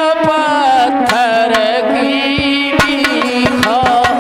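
Indian folk music interlude: a sustained, wavering melody over regular hand-drum strokes.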